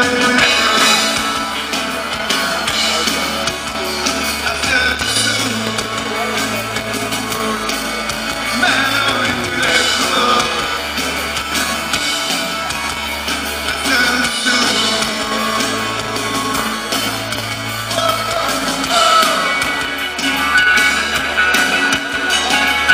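Live rock band playing a song, loud and continuous.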